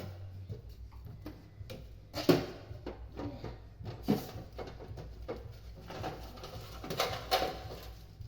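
A few sharp knocks and rustles of plastic fridge accessories and a paper manual being handled, the loudest about two seconds in, over a steady low hum.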